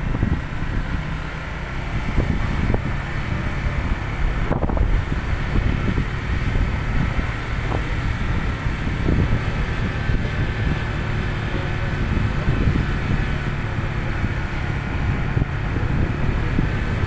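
Motorcycle riding along a road: wind buffets the microphone in a steady, gusty rumble, with the engine running underneath.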